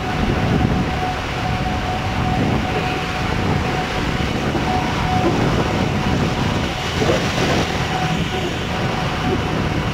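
Steady rush of road and wind noise from a vehicle moving through city traffic, with engine and tyre rumble and a thin, steady high whine throughout.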